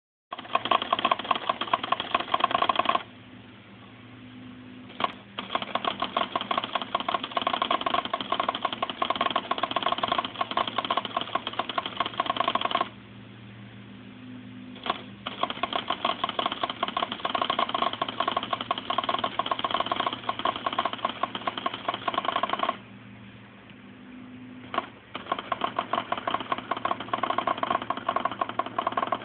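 Casio FA-11 printer printing text with its pen mechanism: a noisy, fast, dense mechanical ticking buzz in long runs of about eight to ten seconds. Twice it stops for about two seconds, leaving a low hum, and a single click comes just before the printing starts again.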